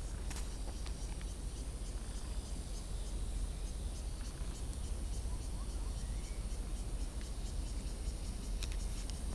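Steady, even high-pitched chirring of insects in the trees, over a low steady rumble.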